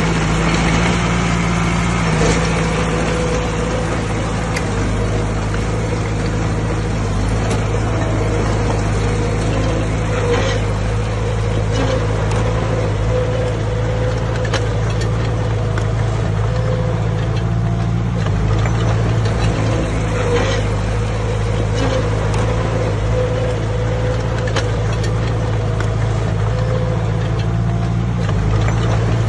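Heavy diesel engine of earthmoving machinery running steadily under load, with a few sharp clanks of metal or stone.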